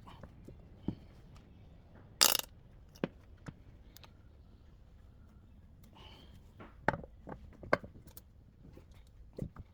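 Scattered clicks and knocks of metal parts and hand tools being handled while a jet ski's jet pump is worked on, with one short loud rasp a little over two seconds in.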